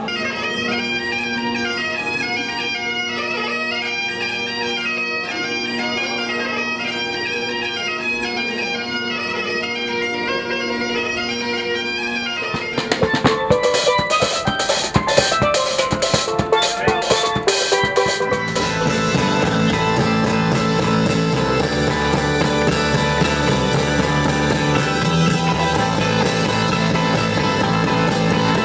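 Bagpipes playing a melody over steady drones, then, about twelve seconds in, a passage of rapid drum strokes, followed by band music with a low bass line.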